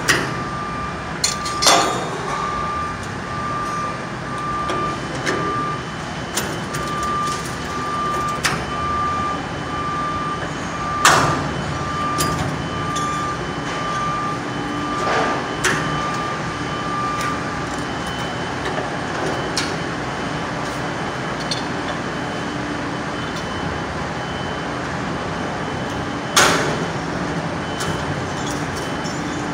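Construction-site background: a steady machine hum with an electronic beep repeating evenly that stops a bit past halfway, and a few sharp knocks.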